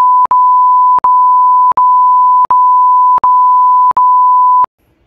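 A loud, steady electronic bleep tone on one high pitch, broken about every three-quarters of a second by a short clicking gap; it stops shortly before the end.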